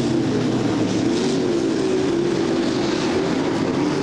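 A pack of winged dirt-track sprint cars racing around the oval, their engines running together in a steady, continuous mix of engine tones.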